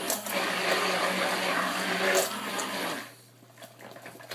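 Hand-held electric blender running in soap batter to mix in colour, switched off about three seconds in.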